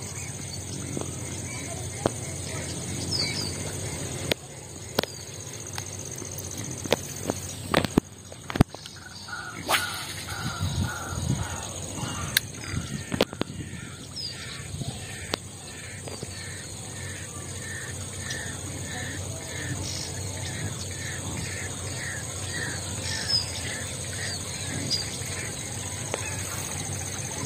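A bird calling over and over in a long run of short, evenly spaced calls, about one or two a second, starting about a third of the way in, over a steady high hum. A few sharp clicks come in the first half.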